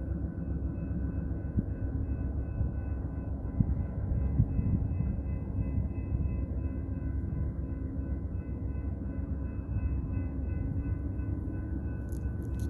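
Amtrak California Zephyr passenger train running with a steady low rumble, a faint steady whine above it.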